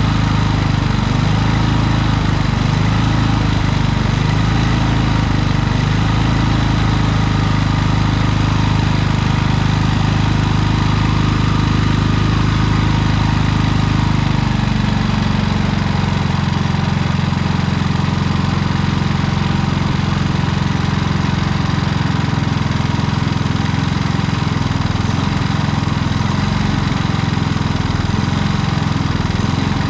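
Predator portable generator's small gasoline engine running with its speed wavering. About halfway through, its pitch shifts and it runs steadier. The owner traced the surging to a mis-set idle stop screw rather than the carburetor.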